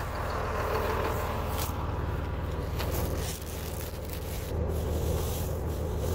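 Tractor engine idling steadily under rustling and scraping of dry forage and stubble. The scraping is loudest about a second in. A plugged John Deere 568 round baler's pickup is being dug out by hand.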